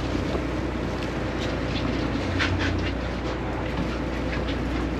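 Boat engine running with a steady low hum under a wash of wind and water noise, with scattered light clicks and knocks.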